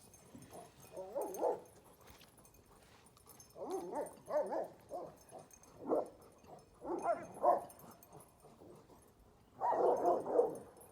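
A dog whining and yipping in short bursts of rapid, warbling cries, five times over, with pauses between; the loudest burst comes near the end.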